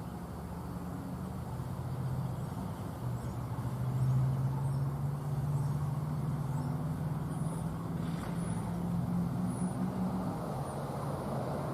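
A vehicle engine running, a steady low hum that grows louder about four seconds in and holds, with a few faint high chirps in the second half.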